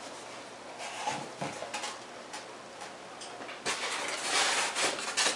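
Rustling and light clicks and knocks from handling foam RC airplane parts and their packing. The rustling grows louder for a moment about two-thirds of the way through.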